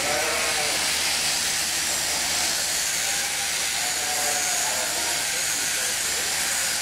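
Sheep-shearing handpiece running steadily, its cutter working through merino fleece with a constant high hiss and whir.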